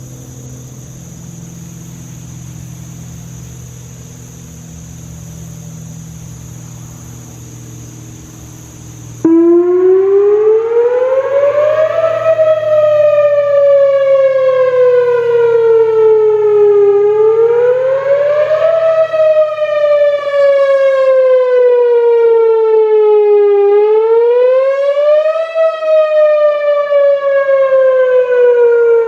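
Whelen Vortex R4 rotating outdoor warning siren switching on abruptly about nine seconds in, sounding its monthly test wail. It is a loud tone that climbs quickly and then sinks slowly, repeating roughly every six and a half seconds.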